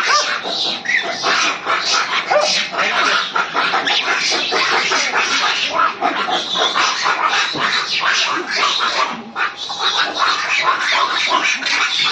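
A pack of dogs fighting over prey on the ground: a dense, continuous tangle of snarls and growls, with a few short yelps in the first couple of seconds.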